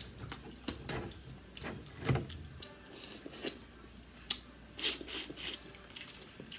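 Close-miked eating sounds: wet chewing, mouth smacks and irregular clicks as seafood-boil crab and shrimp are eaten, with a few louder smacks about two seconds in and again near five seconds.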